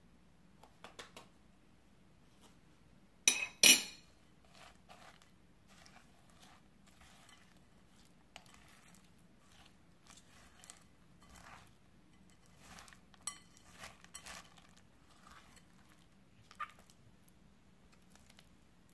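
A metal spoon knocking twice sharply against a glass mixing bowl about three seconds in, after a few lighter taps. Then a silicone spatula folds and scrapes through a soft, creamy blueberry filling, with quiet squishing and scraping strokes against the glass.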